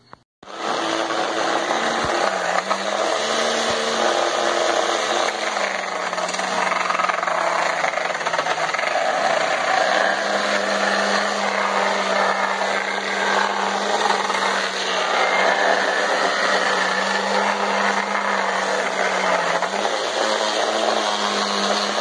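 Blender motor in a homemade PVC-tube sander running at speed: a loud, steady motor whine whose pitch sags and recovers a few times. It starts about half a second in.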